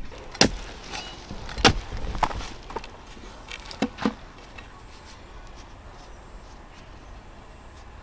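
About six sharp knocks in the first four seconds: two loud ones a little over a second apart near the start, two weaker ones after them, and a close pair about four seconds in. Only low background sound follows.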